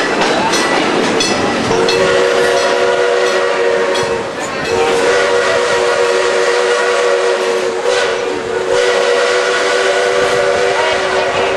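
Steam locomotive whistle blowing three long blasts, several tones sounding together, with short breaks between them, over the clickety-clack and rolling noise of the train's wheels on the rails.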